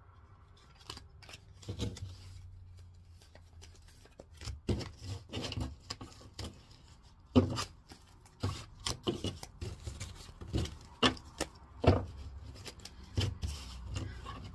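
A deck of tarot cards being shuffled by hand: an irregular run of card clicks, slides and rubbing, with a few louder snaps, starting about a second in.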